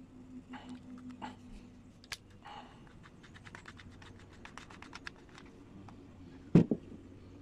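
A series of light clicks and taps, quickening into a rapid run of about eight a second in the middle, then a heavy low thump near the end.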